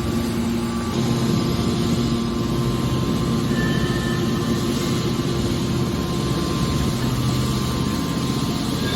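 Hydraulic metal scrap baler running: a steady machine hum from its hydraulic pump and motor, with a held low tone and a haze of noise above it.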